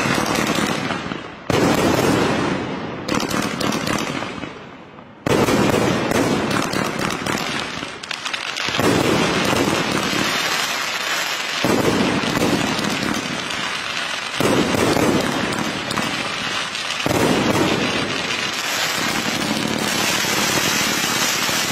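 A 208-shot fireworks cake firing. In the first five seconds single shots go off with a second or so between them, each launching and bursting. From about five seconds in it turns into a continuous barrage of launches and bursts, with louder surges every few seconds.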